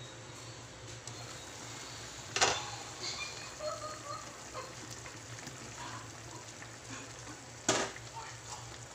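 Chicken simmering in broth in a metal pan: a fine bubbling crackle over a steady low hum. Two sharp knocks stand out, about two and a half seconds in and near the end.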